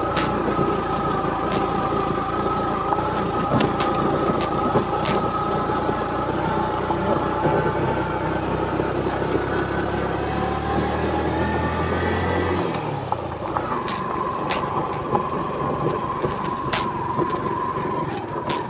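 Small motorcycle engine running while riding over a rough gravel track, with occasional sharp knocks from the bumps. About ten seconds in the engine note climbs, then drops and settles into a steady lower note.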